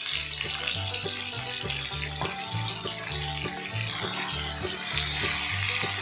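Potato pieces sizzling steadily as they fry in hot oil, under background music with a low, stepping bass line.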